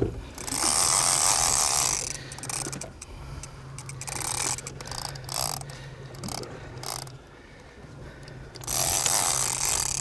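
Conventional big-game fishing reel ratcheting in several spurts of a second or two, under the load of a hooked amberjack, over a steady low engine hum. A sharp knock right at the start.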